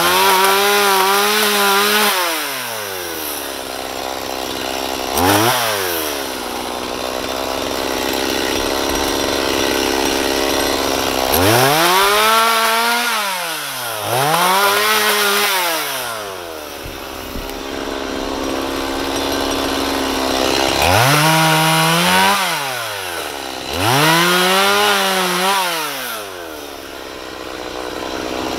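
Two-stroke chainsaw limbing a felled conifer: the engine revs up to full throttle for a cut of about two seconds, then drops back to idle, five times over, with a short blip of throttle in between. The pitch sags slightly during each cut as the chain takes the load.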